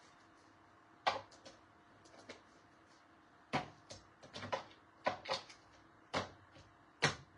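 Small chalk paste jars and their lids being handled and set down on a work table: irregular light clicks and knocks, the loudest about a second in and near the end.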